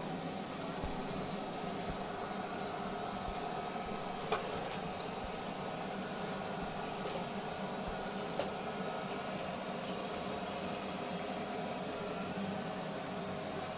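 Robot vacuum cleaner running: a steady motor hum and hiss with a high whine, and a few light clicks about four and eight seconds in.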